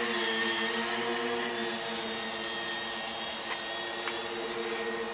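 Tricopter's electric motors and propellers running steadily in flight: a buzzing propeller hum with a thin high whine above it, the pitch wavering slightly as the throttle changes.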